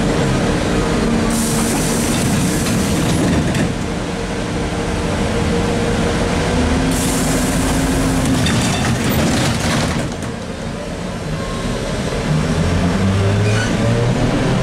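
ZiU-683B articulated trolleybus running, with traction-motor whine and road noise. The hiss grows louder twice, and near the end the motor whine rises in pitch as the trolleybus picks up speed.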